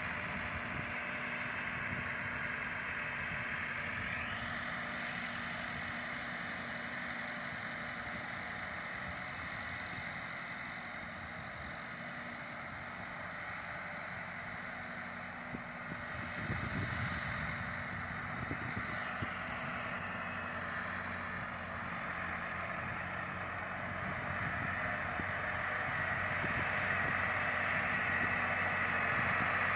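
Massey Ferguson 375 tractor's three-cylinder diesel engine running steadily under load while pulling a land leveller through the soil, growing a little louder near the end.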